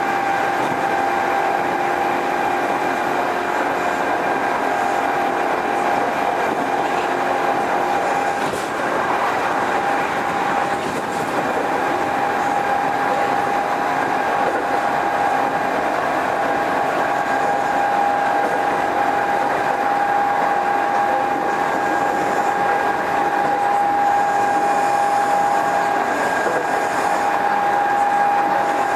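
Kintetsu 2430 series electric train running at speed, heard from inside the car: steady rolling noise with a continuous high whine.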